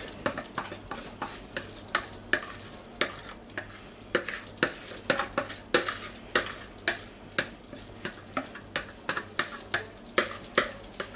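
A kitchen utensil scraping thick, wet vegetable batter out of a plastic mixing bowl, with quick irregular scrapes and taps against the bowl, about three a second.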